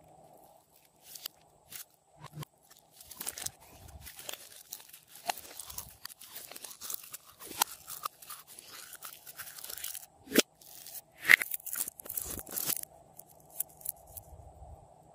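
Hands squeezing glossy slime inside a soft plastic jar, making a run of crackling, popping clicks that grows busier toward the middle and stops about two seconds before the end.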